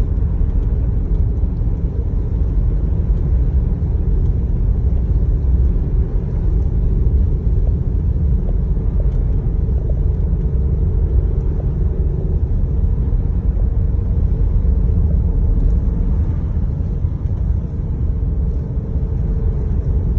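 Steady low rumble of road noise inside the cabin of a 2019 Jeep Grand Cherokee cruising at about 40 mph on a snow-covered road, with a faint steady hum over it.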